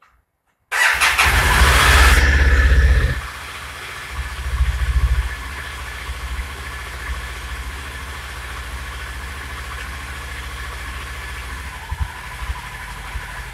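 Yamaha TDM 850 parallel-twin motorcycle engine cranked on the starter and catching about a second in. It runs fast for a couple of seconds, then settles to a steady idle with one short rev. A couple of sharp pops near the end are the engine sneezing back through the carburettor.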